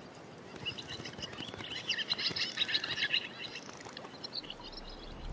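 Birds chirping and twittering: a quick run of short high chirps that builds to a dense chatter in the middle and thins out near the end.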